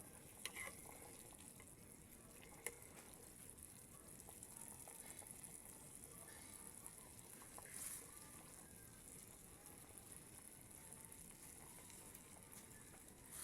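Faint, steady hiss of food cooking in a pot, with a couple of light clicks.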